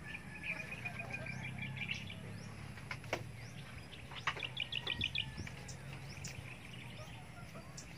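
Wild birds chirping and calling, with two quick trills of rapidly repeated short notes, one early and one about halfway through, over scattered brief high calls.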